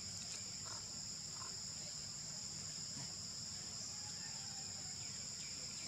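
Steady, continuous high-pitched insect chorus, a shrill two-toned drone that does not change.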